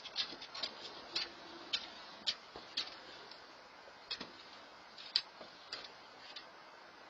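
A series of short, sharp clicks or taps, irregular and about two a second, thinning out near the end.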